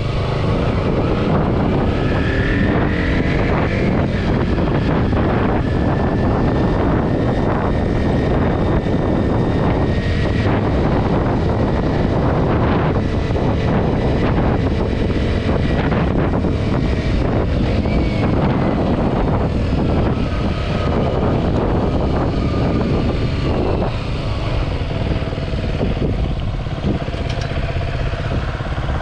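KTM Duke 125's 125 cc single-cylinder engine running at speed, largely buried under heavy wind noise buffeting the microphone, with a faint engine whine that drifts up and down in pitch.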